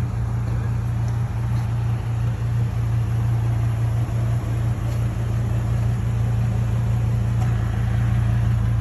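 Hummer H3 engine idling steadily with an even, low hum.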